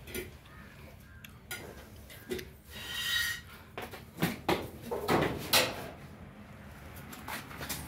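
Cow being milked by hand, milk squirting into a steel pail in short, uneven spurts. The spurts are loudest and closest together from about four to six seconds in.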